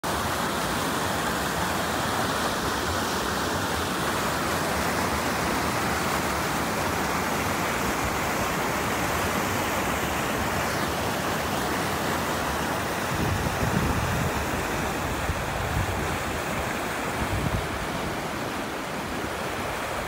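Steady rush of white water pouring over rocks in a shallow stream cascade. From about two-thirds of the way in, uneven low rumbles of wind buffeting the microphone come in over it.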